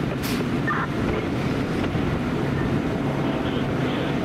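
Steady drone of a running engine with a low hum, and a short hiss a fraction of a second in.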